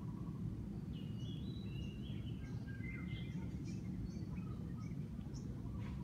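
Several wild birds chirping and whistling in short, separate notes, some level and some sliding, over a steady low background rumble.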